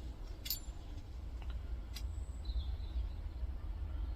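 A few light clicks from small metal meter parts being handled, over a steady low hum, with faint high chirps near the middle.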